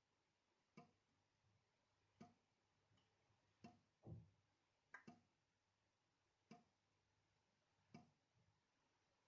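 Tap dripping into a sink: single faint drops land about every second and a half, each a short plink, with one lower, duller drop about four seconds in.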